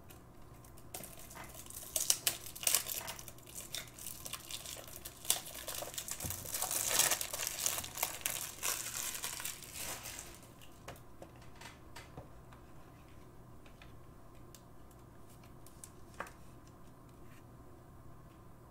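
Thin clear plastic crinkling and rustling as a trading card is handled and slipped into a plastic sleeve and rigid holder, loudest a little past the middle and dying away about ten seconds in, followed by a few faint light ticks.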